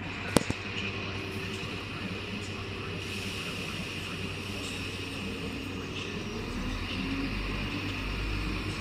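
Diesel multiple-unit passenger train rolling slowly along the platform, its underfloor diesel engines running with a steady hum, and a low rumble that grows louder near the end as it comes closer. A single sharp click about half a second in.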